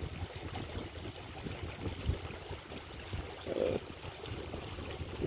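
Flowing water with a steady rush, mixed with wind rumbling on the microphone.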